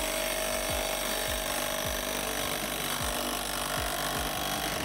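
Ratcheting wrench rasping steadily as a nut is tightened onto a bolt, over a low, regular music beat.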